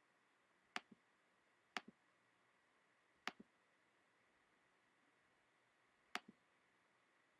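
Four computer mouse clicks against near silence, each a sharp press followed a split second later by a softer release.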